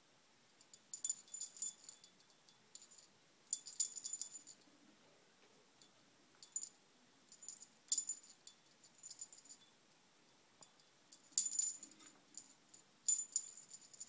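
Small metal bell and wooden pieces of a hanging cage toy jingling and rattling in short, irregular bursts as a budgerigar pecks and tugs at it.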